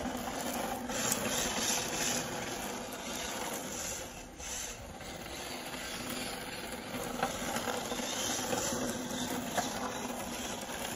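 Radio-controlled drift car with a Lancer Evolution body, its small electric motor running and its hard tyres sliding on concrete with a steady hiss as it drifts around the markers.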